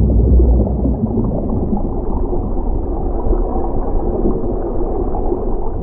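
Underwater bubbling and gurgling with a deep rumble, dull and muffled, a little louder in the first second.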